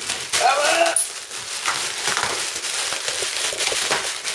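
Plastic air-cushion packaging film crinkling and rustling as a dog paws and tugs at it. There is a short whining vocal sound about half a second in.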